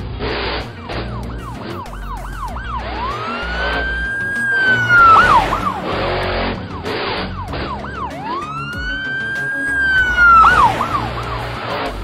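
Police car siren: quick rising-and-falling yelps, then a long wail that climbs, holds and drops about five seconds in. The same pattern repeats, dropping again near the end, over background music with a steady beat.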